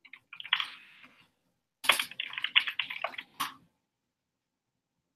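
Typing on a computer keyboard: two quick runs of keystrokes, the second longer, about two seconds.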